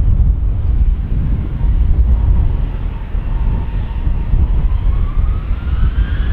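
Boeing 737-800's CFM56 jet engines spooling up for takeoff: a deep rumble, with a whine that climbs in pitch from about four seconds in.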